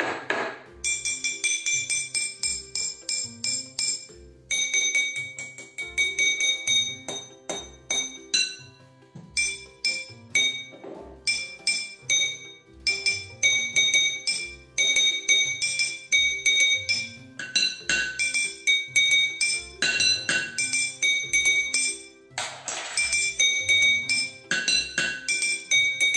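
A rhythmic pattern of strikes played on kitchen objects. A glass of water, tapped with a small utensil, rings with bright pitched clinks, and a wooden spoon knocks on an upturned stainless-steel pot. The pattern comes in phrases with short pauses between them.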